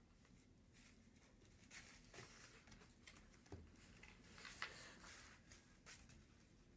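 Near silence: room tone with a few faint, scattered ticks and scratches.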